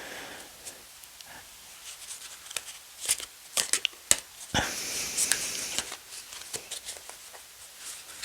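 Thick tarot cards being handled and laid down: scattered light snaps and taps, with a stretch of sliding, rustling card noise about five seconds in.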